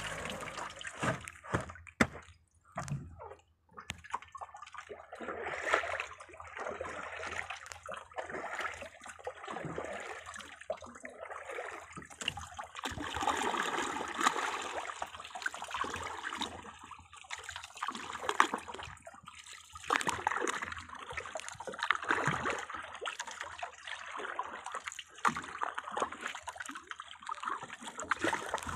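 Water sloshing and splashing against the hull of a small outrigger fishing boat at sea, in uneven swells and splashes.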